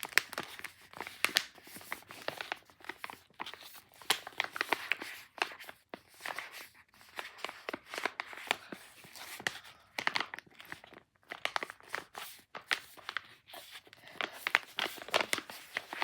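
Close-miked beads being handled and rubbed between fingers: dense, irregular clicking and crackling in bursts, with short pauses between handfuls.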